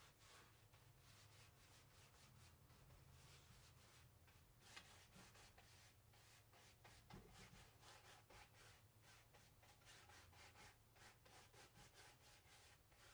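Faint scrubbing of a paintbrush working chalk paint into upholstery fabric, in repeated short strokes a few times a second.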